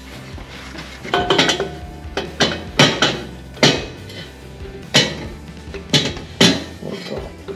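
Irregular metal clanks and knocks, about eight in all, some ringing briefly: a starter motor bumping against the engine and surrounding metal as it is worked up into its mounting spot.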